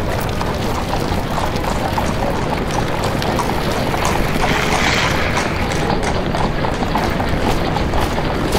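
Added street sound effects of horse-drawn traffic: horses' hooves clip-clopping over a steady bed of street and crowd noise.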